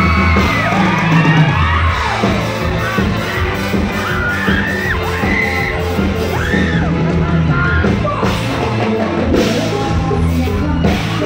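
Live band playing loudly through stage speakers, with drums and bass under singing, and shouts and whoops over the music.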